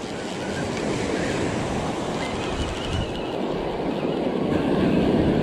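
Spinning fishing reel cranked close to the microphone: a steady mechanical whir as the line is wound in, growing slightly louder, with surf behind it.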